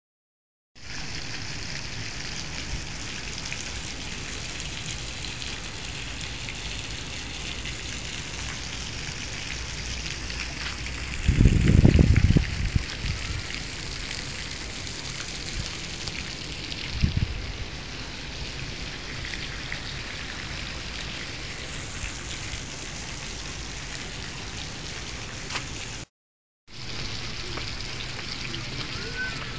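Outdoor wind noise on the microphone: a steady hiss, with a loud gust buffeting the mic about twelve seconds in and a smaller one a few seconds later. The sound drops out for a moment near the end.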